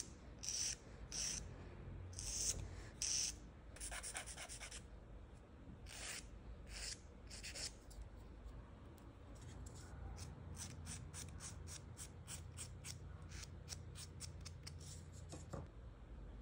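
Short rasping strokes of a nail file or buffer on fingernails. The strokes are spaced out at first, then quicken to about three a second in the second half and stop shortly before the end.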